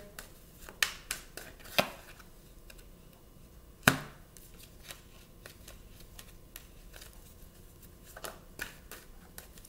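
Tarot cards being drawn from the deck and laid down on a wooden table: a few scattered taps and flicks, with one sharp snap about four seconds in.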